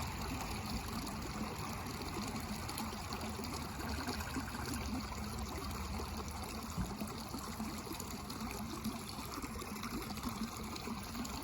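Steady trickling of running water, an even hiss with a low rumble beneath.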